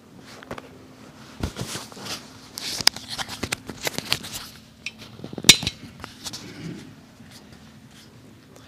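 Irregular clicks, taps and knocks of things being handled at a wooden lectern close to its microphone, loudest about five and a half seconds in. A faint steady hum lies underneath.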